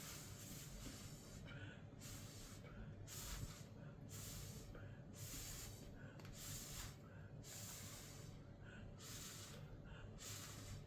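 A person blowing across wet acrylic paint in short, faint puffs of breath, about one a second, drawing breath between them to push the paint out into feather shapes.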